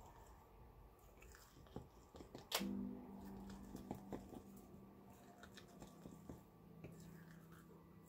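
Faint sticky clicks and crackles of a thick PVA glue glaze loaded with glitter flakes being pressed and poked with a small stick in a jar, with one sharper click about two and a half seconds in. Soft background music holds a low note from that point on.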